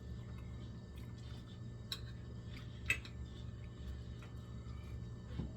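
A few sharp clinks of a spoon against a plate while eating, the loudest about two and three seconds in, over a steady low hum.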